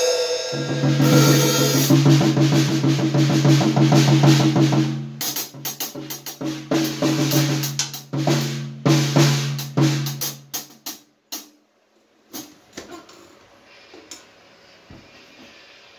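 Acoustic drum kit being played: a dense groove of snare, bass drum and cymbals with low ringing tones under it, which thins out and breaks off about eleven seconds in. After a brief gap come only a few scattered single hits.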